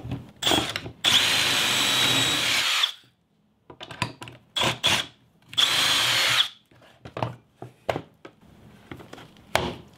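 Milwaukee 18-volt cordless drill boring pocket holes through a Kreg K4 pocket-hole jig, with a steady high motor whine. It runs twice, first for about two seconds and then for about one, and a few short knocks and clicks follow near the end.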